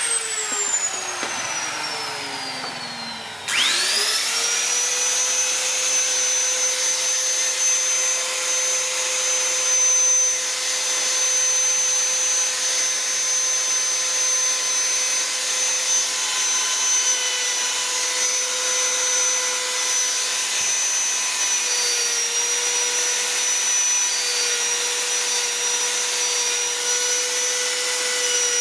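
Electric rotary carving tool with a pointed burr: its high whine winds down over the first few seconds, then the motor starts again about three and a half seconds in, rising quickly to a steady whine as the burr cuts into the wood, with a slight drop in pitch partway through.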